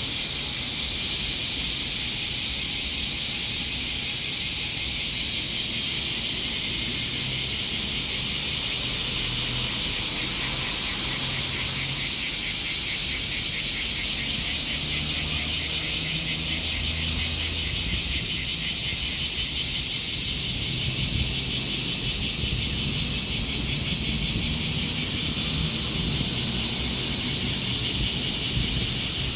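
Cicadas in full summer chorus: a loud, continuous, fast-pulsing high buzz. A low rumble sits underneath, swelling in patches and strongest around the middle.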